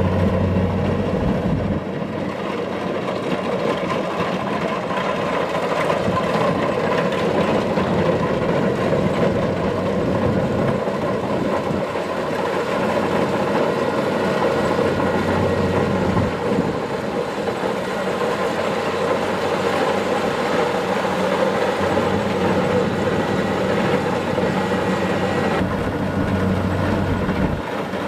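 Kubota DC-70 Plus rice combine harvester running steadily, its diesel engine and machinery making a continuous mechanical sound.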